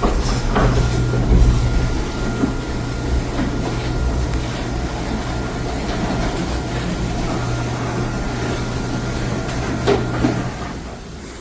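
Garage door opener motor running with a steady hum while the door rolls and rattles along its tracks, with scattered knocks; the run stops with a knock near the end.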